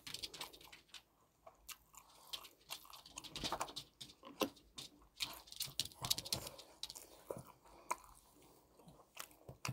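Eating sounds close to the microphone: chewing and biting into fried snacks and tteokbokki, with scattered small clicks and taps of a fork against the plate.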